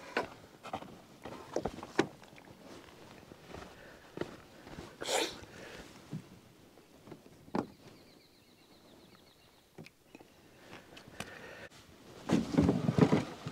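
Knocks, bumps and short scrapes of an Old Town Discovery canoe and the gear in it as the canoe is pushed off a sandy bank into the water. About twelve seconds in comes the loudest sound, a longer scraping rush as the paddler steps aboard and the hull slides off the sand.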